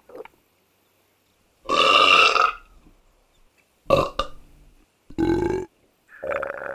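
A person belching loudly four times, with short quiet gaps between the belches.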